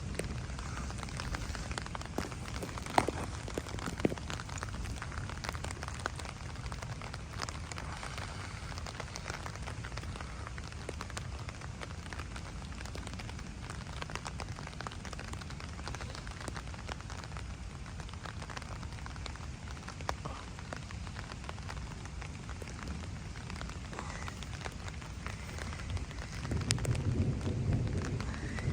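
Steady heavy rain falling, with scattered sharp drop ticks over a low rumble. Near the end a deeper rumble swells louder.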